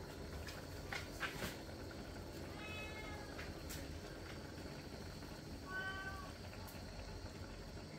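A cat meowing twice, about three seconds in and again near six seconds, each a short rising-and-falling call. A few sharp crackles from the wood fire come in between.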